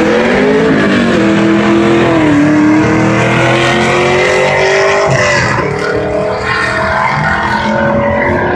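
Drag race cars accelerating hard down the strip, their engine pitch climbing and dropping back at gear shifts about a second in and again about five seconds in, the sound easing off slightly as they pull away.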